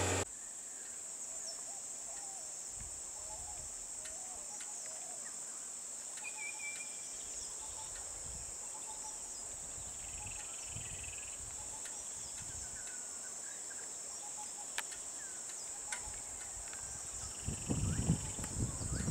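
A steady, high-pitched drone of insects from the roadside forest, with scattered short bird chirps. Some low noises come in near the end.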